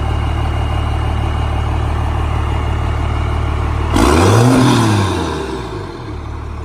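12-valve Cummins 5.9 L diesel idling, then revved once about four seconds in, the pitch climbing and dropping back to idle within about two seconds.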